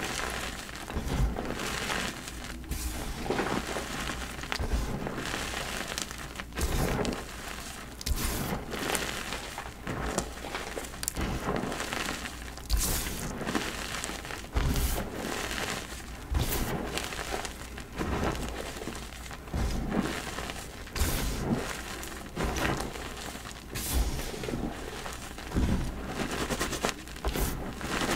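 Blocks of dyed gym chalk being crushed and crumbled, giving a continuous run of irregular crunches and crackles with soft low thumps.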